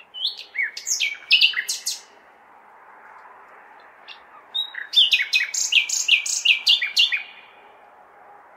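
Nightingale singing two phrases of rapid repeated notes and down-slurred whistles, the second starting about four and a half seconds in, over a steady city background hum.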